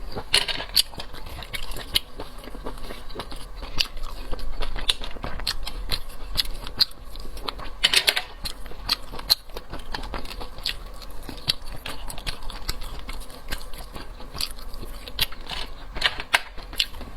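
Close-miked chewing of mussels: a dense, irregular run of small mouth clicks and smacks, with a few louder ones about half a second in, about eight seconds in and near the end.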